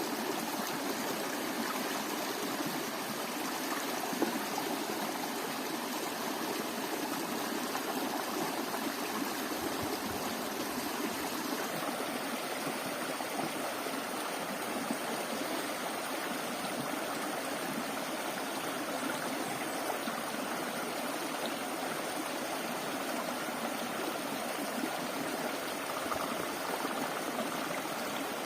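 Steady rushing of a flowing stream, its tone shifting slightly about twelve seconds in.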